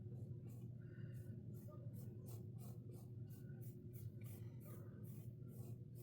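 Paintbrush brushing acrylic paint onto canvas in short, quick strokes, about three a second, over a steady low hum.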